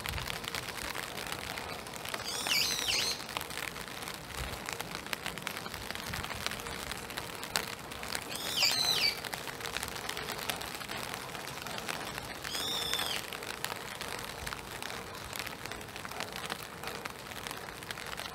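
Steady hiss of spring rain falling through the trees and onto a wet boardwalk, with a bird giving three short, arching calls about five seconds apart.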